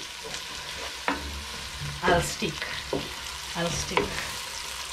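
Onions sizzling in hot oil in a cooking pot while being stirred with a spoon, which knocks and scrapes against the pot a few times over the steady hiss of frying.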